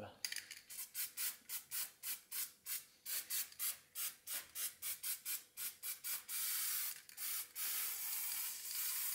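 Aerosol can of paint stripper spraying, first in short quick puffs about three a second, then in a long steady hiss from about six seconds in, broken once briefly.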